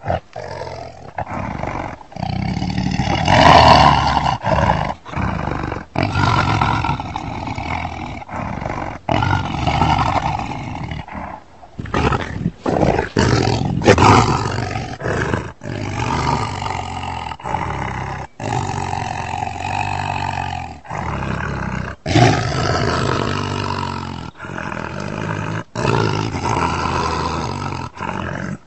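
Lion roaring over and over, in short pieces of about a second each that break off abruptly.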